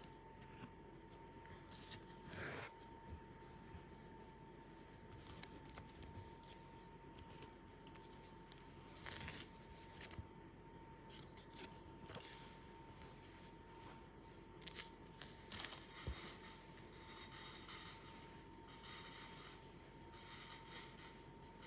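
Hockey cards and card packs being handled: faint, scattered rustling and scraping, a few louder bursts of crinkling spread through, over a faint steady high-pitched hum.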